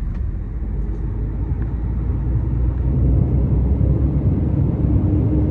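Mercedes-Benz Actros MP4 truck's diesel engine heard from inside the cab as a steady low rumble, pulling away under acceleration with its automated gearbox. The engine grows louder about three seconds in, and a faint steady whine joins near the end.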